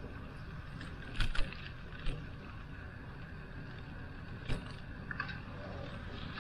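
Bicycle riding: steady wind and road rumble with several sharp rattles from the bike, the loudest a double clack about a second in.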